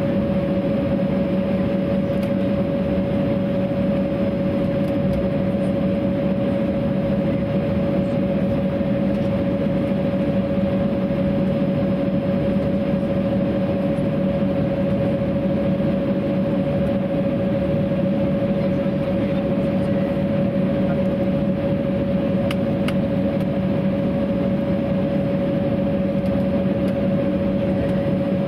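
Cabin noise inside an Embraer 195 holding on the ground with its General Electric CF34-10E turbofans idling: a steady drone with a constant whine running through it.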